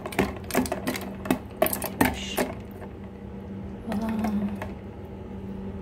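A utensil stirring broccoli florets in ice water in a plastic container: quick irregular clicks and knocks of the utensil and ice against the plastic, thinning out about halfway through.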